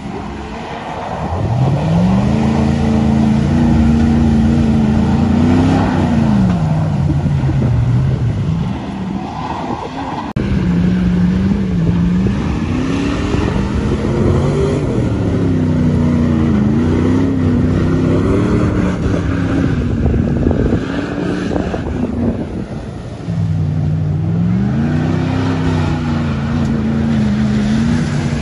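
Pickup truck engines revving up and down as the trucks drive through deep mud, the pitch rising and falling again and again. The sound jumps abruptly about ten seconds in and again near the end.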